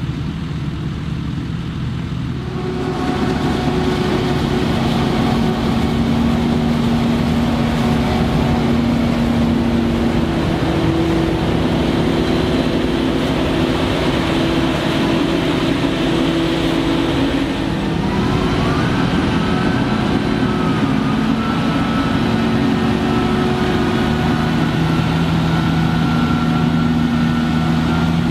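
Claas Jaguar 960 forage harvester chopping maize, with a Fendt 722 Vario tractor running alongside, a steady engine drone with several held tones. It gets louder about three seconds in, and a whine rises in pitch about two-thirds of the way through.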